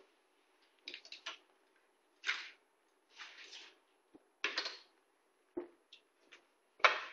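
Short clicks, knocks and scrapes of motorized supermarket trolley parts being handled and fitted together during assembly. There are about six separate bursts with pauses between them, the loudest near the end.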